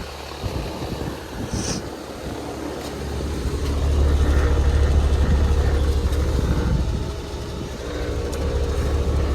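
Kelvinator air conditioner running: a steady low hum from the compressor and fan, swelling louder about three and a half seconds in and easing off again near the end, with a short hiss about a second and a half in.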